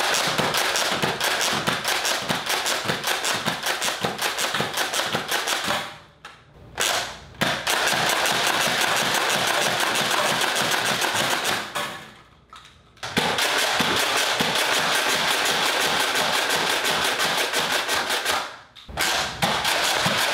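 Nerf Doomlands Double Dealer, a spring-powered pump-action blaster, being primed and fired over and over. The string of plastic clacks and spring shots, each firing two darts at once, comes several times a second and stops briefly three times.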